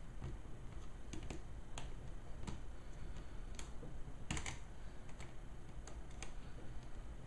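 Irregular light clicks and ticks from a small screwdriver working a screw into the HP Pavilion g6 laptop's screen mount and the plastic parts being handled.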